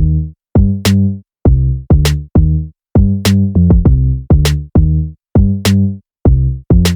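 Background electronic music with a drum-machine beat: sharp snare-like hits over short, pitched bass notes, about two to three beats a second, with brief gaps between them.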